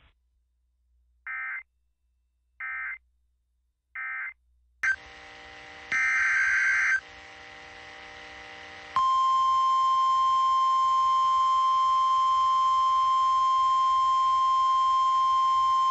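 Emergency Alert System digital data tones: three short warbling end-of-message bursts about a second and a half apart. After a click and radio hiss, a second-long burst of SAME header data follows, then from about nine seconds in a single steady alert tone near 1 kHz, the NOAA Weather Radio 1050 Hz warning alarm.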